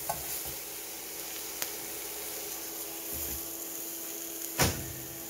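Peppers and mushrooms sizzling faintly in a frying pan, a steady hiss. A light click about a second and a half in, and near the end a single louder knock.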